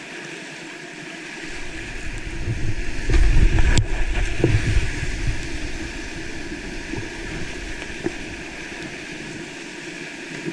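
Whitewater rapids rushing steadily, with a loud low rumble of water splashing and buffeting over the camera from about two to five seconds in as the kayak drops through the rapid.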